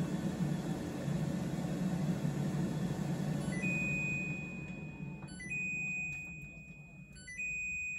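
COSORI TurboBlaze air fryer's fan running steadily, then winding down as the timer runs out. Three long, high beeps come about two seconds apart from about three and a half seconds in: the end-of-cooking alert.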